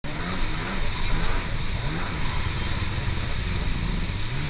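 Personal watercraft (jet ski) engine running at speed, its pitch rising several times with the throttle, over the steady hiss of rushing water and spray.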